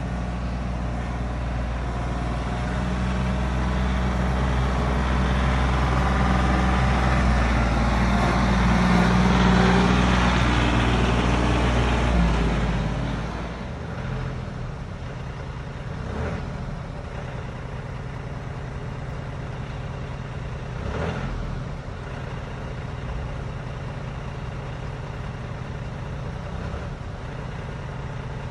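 Compact diesel tractor engine running. It grows louder over the first ten seconds as the tractor comes close, then drops at about thirteen seconds to a steady, lower hum as it drives on.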